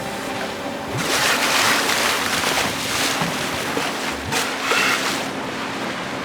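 Wind and water noise aboard a cruise boat, with wind buffeting the microphone in gusts and a low steady hum underneath.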